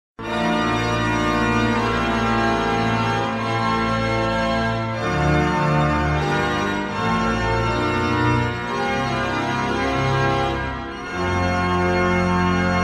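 Organ music: slow held chords that shift every second or so, with a brief dip about eleven seconds in before a new sustained chord.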